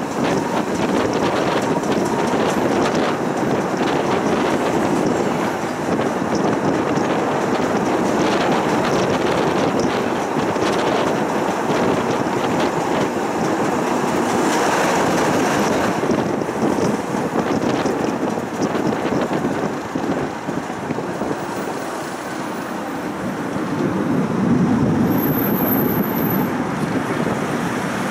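Tram running along street-side rails, heard from on board: a steady rolling rumble of wheels on track with fine clicks from rail joints. About 14 seconds in, another tram passes close by the other way, and the sound swells briefly.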